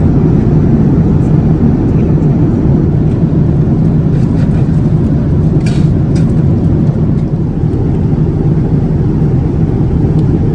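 Steady, low cabin noise of a Boeing 787-9 in flight, the even rush of air and engines heard from an economy seat, with one faint click a little past the middle.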